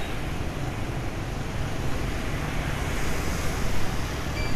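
Steady wind noise rushing over the microphone while riding a motorbike through city traffic, over a low rumble of engines and tyres.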